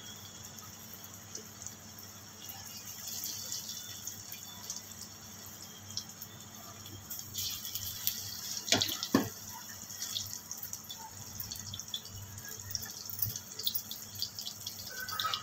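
Besan-battered potato slices deep-frying in hot oil in an iron kadhai: a steady sizzle with scattered small crackles and pops. Two sharp clicks sound a little past halfway.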